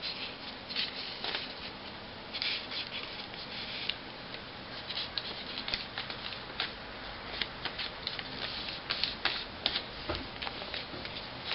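Paper being handled and folded: irregular rustling and crackling, with rubbing as the fingers press the folds down.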